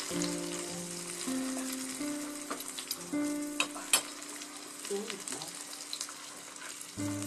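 Bread-crumb-coated chicken pieces frying in hot oil in a small kadhai: a steady sizzle with scattered crackles and pops.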